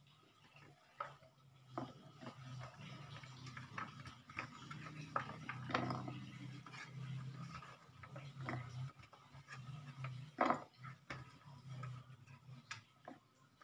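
Peeled garlic cloves dropped and handled in the clear plastic bowl of a small electric food chopper: a scatter of light clicks and knocks, the loudest about ten seconds in. A low steady hum lies under most of it.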